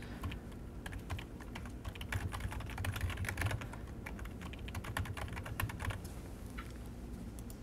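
Typing on a computer keyboard: a long run of quick key clicks that thins out near the end.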